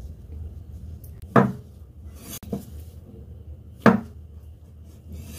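Cleaver cutting down through a block of tofu and knocking on a wooden chopping board: two sharp knocks about two and a half seconds apart, with a softer knock between them.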